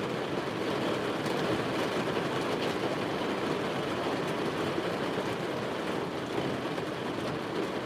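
Hail and heavy rain falling on a vehicle's roof, heard from inside the cabin as a dense, steady patter with a few sharper clicks.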